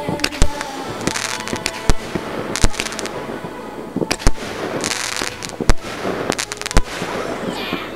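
Fireworks going off: a string of sharp bangs at irregular intervals, several of them followed by a short crackling hiss as the shells burst.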